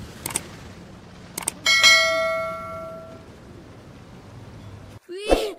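Subscribe-button animation sound effect: a couple of quick mouse clicks, then a bell rings once about two seconds in and fades away over about a second.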